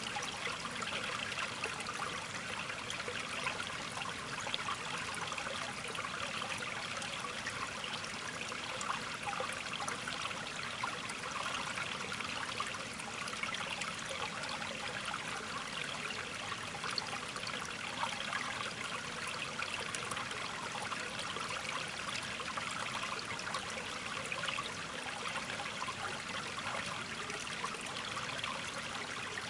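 Running water trickling steadily, unbroken throughout.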